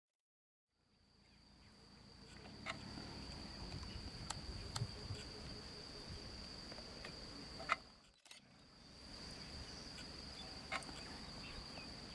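Faint, steady, high-pitched chirring of crickets, with a few soft clicks scattered through it. The sound cuts out completely at the start and again about eight seconds in.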